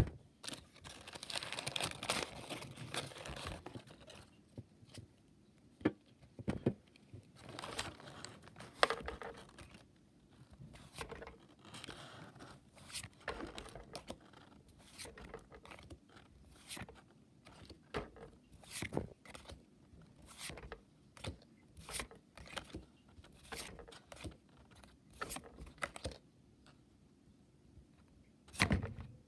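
Crumpled paper crinkling for the first few seconds, then Pokémon trading cards being flicked through one at a time, a short slide or click about once a second. A louder handling thump comes near the end.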